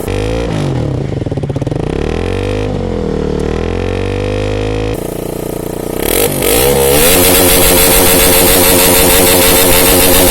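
Motorcycle engine running, its revs rising and falling several times. About two-thirds of the way through it gets louder and stays at higher revs.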